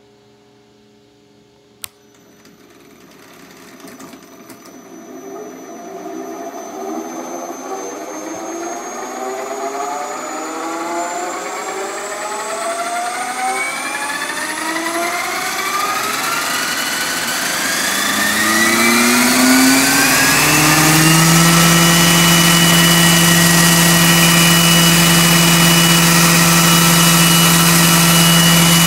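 Roban EC-135 scale RC helicopter spooling up for a test at 50% throttle with the collective pitch at −3%. After a sharp click about two seconds in, the motor and rotor whine climbs steadily in pitch and loudness for nearly twenty seconds as the rotors come up to speed, then holds at a steady pitch.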